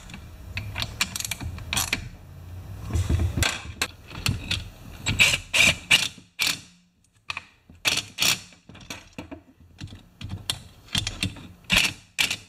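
Irregular clicks and clunks of tools and parts being handled while a chainsaw is put back together, with a cordless drill/driver running briefly now and then as it drives screws into the saw's housing.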